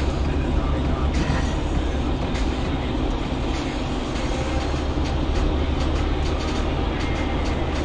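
Steady low rumble of road and engine noise inside a moving car, with faint scattered clicks and rattles.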